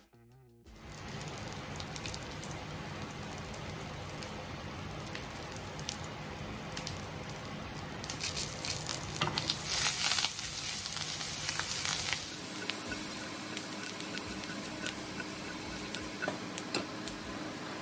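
Small potatoes sizzling and crackling in hot olive oil in a frying pan. The sizzle grows louder for a few seconds from about eight seconds in, as butter goes into the pan, then settles.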